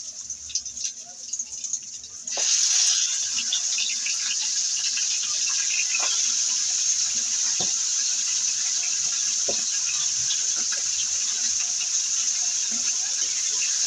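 Pork hitting hot oil with sautéed garlic and onion in a metal pan: a loud sizzle starts suddenly a couple of seconds in as the meat goes in, then keeps up a steady frying sizzle with a few light knocks of utensils against the pan.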